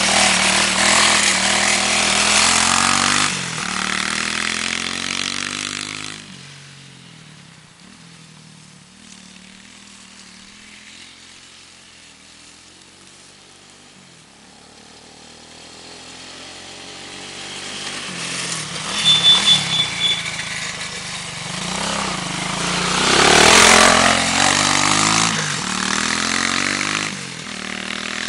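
Lamar 200cc quad ATV engine revving hard as it passes close by. It fades to a faint, distant hum about six seconds in as the quad rides away, then grows louder again as it comes back. Quick throttle blips come about two-thirds of the way through, and it is loudest shortly after.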